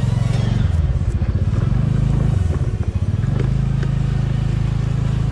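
TVS Ntorq 125 scooter's single-cylinder engine running at low road speed. The engine note wavers and drops about two to three seconds in, then runs steady, with a few light knocks.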